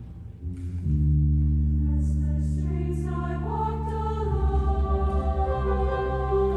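Mixed high school choir singing with instrumental accompaniment: a low held note comes in about a second in, and the voices build into a sustained chord above it from about two seconds in.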